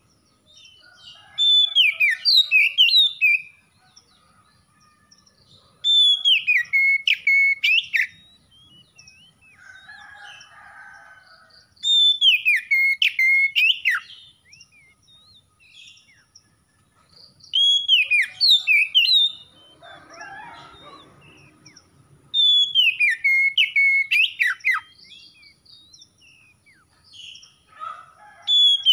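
Oriental magpie-robin singing: loud whistled phrases about two seconds long, with quick slurred notes that fall and rise, repeated every five or six seconds. Quieter, lower sounds fill two of the gaps, about ten and twenty seconds in.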